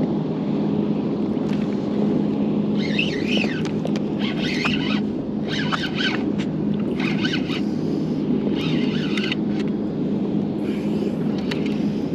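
A steady low motor rumble with a constant hum, joined by short bursts of high, wavering squeals from about three seconds in and again near the end.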